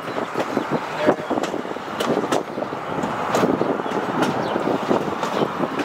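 Narrow-gauge railroad passenger car rolling over the track, with irregular clicks and clanks from the wheels and rail joints over a steady rumble.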